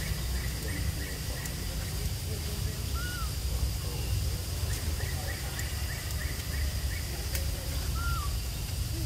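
Forest ambience: a steady low rumble under faint, repeated bird chirps and a faint steady high tone. Two short rising-and-falling calls come about three seconds in and again near the end.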